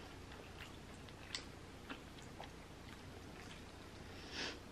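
Quiet close-up eating sounds: faint chewing and a few soft clicks of wooden chopsticks, with a short breathy puff of noise near the end.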